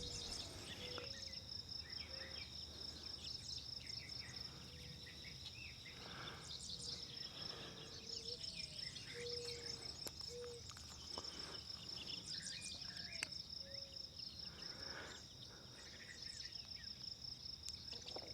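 Faint outdoor ambience of insects, such as crickets, trilling steadily in a high, finely pulsing drone. Short low notes sound now and then through it.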